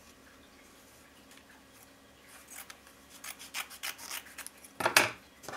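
Scissors cutting cotton fabric in a run of short, crisp snips, followed near the end by one louder knock.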